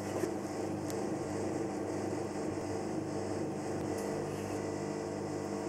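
Steady low electrical hum, such as a kitchen appliance or fan running, with a few faint ticks.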